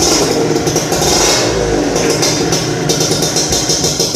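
Modenas Dinamik 120 motorcycle engine running loud through an RRM racing exhaust, its pitch rising and falling a little as it revs.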